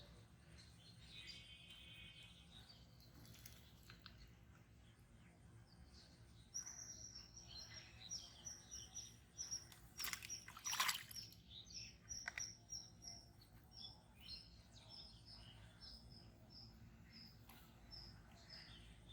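A bird calling outdoors: a short, high chirp repeated about three times a second, starting about six seconds in, over a quiet background. A couple of sharp clicks come about ten seconds in.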